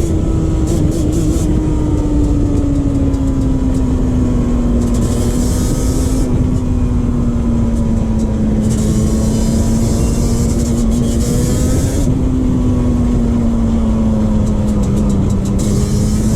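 Yamaha Banshee 350's parallel-twin two-stroke engine running under way at a fairly steady speed, its pitch sagging slowly with a brief rise about twelve seconds in, with wind rumble on the microphone.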